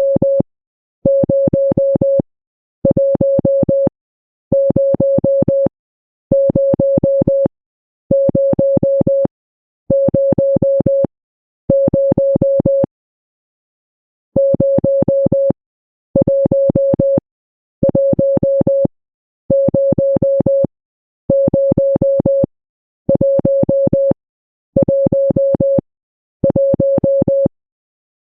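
Morse code tone: a single steady-pitched electronic beep sounding in even bursts of about a second each, roughly one every 1.7 seconds, with one longer pause about halfway through.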